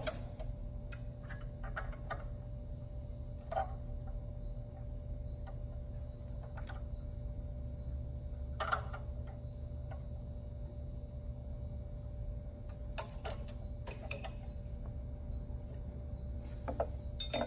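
Scattered faint clicks and light metallic taps as a brass centrifugal unloader elbow is unscrewed by hand from an air compressor pump, over a steady low hum.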